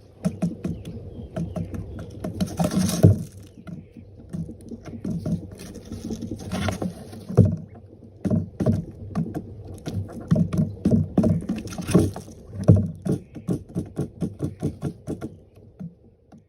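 Irregular knocks and taps, several a second, broken by brief rustling or scraping bursts about three seconds in, around six to seven seconds, and again near twelve seconds.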